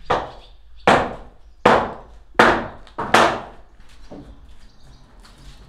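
Five evenly spaced hammer blows, a little under a second apart, each trailing off in a short echo.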